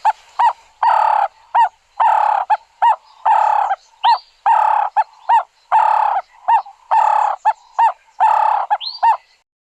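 Ring-necked (Cape turtle) dove calling its repeated phrase: a longer rough coo followed by one or two short clipped notes, about once every second and a bit, ending shortly before the end.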